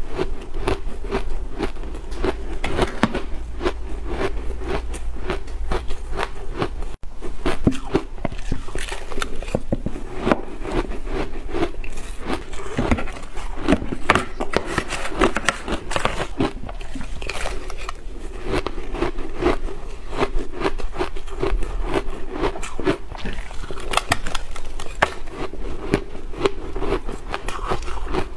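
Close-up crunching and chewing of mouthfuls of blender-shaved ice: a dense, continuous crackle with the spoon scraping through the ice in a plastic cup. The sound cuts out for an instant about seven seconds in.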